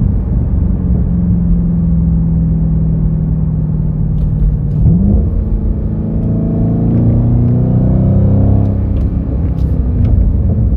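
Dodge Charger SRT Hellcat's supercharged 6.2-litre HEMI V8 running under way. Its note holds steady, then climbs in pitch for a couple of seconds as it accelerates, and falls back about nine seconds in.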